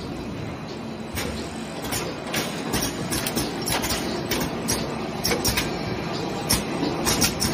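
PET bottle blow moulding machine running, its preform transfer mechanism making a rapid, irregular clatter of sharp mechanical clicks over a steady hum. The clicking starts about a second in and gets busier toward the end.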